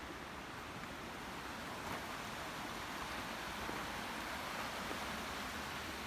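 Mountain stream running over rocks: a steady rush of water that grows a little louder about two seconds in.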